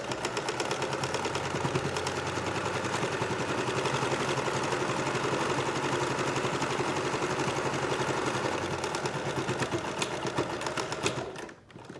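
A domestic sewing machine, not a heavy-duty one, running at a steady speed, a fast even run of stitches, as the mask's edge is stitched all the way around to close the turning gap. It stops about a second before the end.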